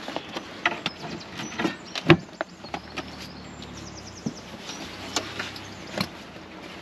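Knocks, clicks and clatter of gear being handled and stowed, with one sharp thump about two seconds in and a quick run of small ticks a little after three seconds in.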